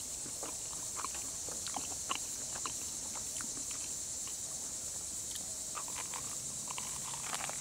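Steady high-pitched drone of a summer insect chorus, with scattered faint irregular ticks and crackles.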